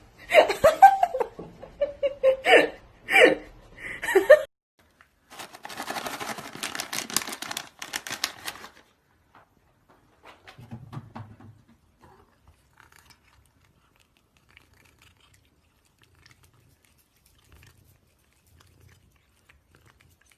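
A person laughing in short bursts, then a few seconds of crackling, rustling noise, then near silence.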